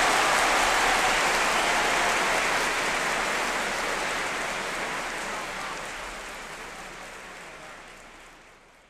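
Audience applause fading out steadily over several seconds.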